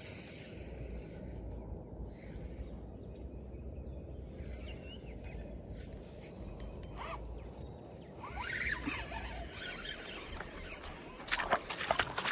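Outdoor ambience with a steady low rumble and a few faint clicks. About a second before the end comes a burst of louder sharp clicking and rustling.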